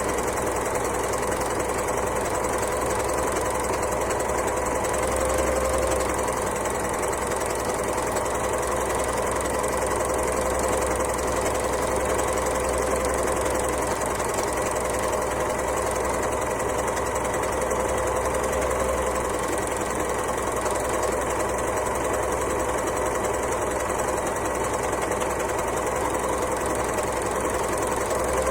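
An overlocker (serger) sewing machine running continuously at a steady speed, a mechanical hum whose pitch wavers slightly.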